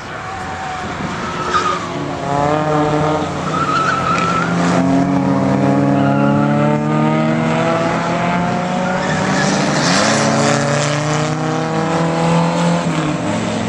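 Engines of several budget endurance race cars accelerating past one after another, their pitches overlapping and climbing through the gears, with brief tyre squeals twice in the first few seconds.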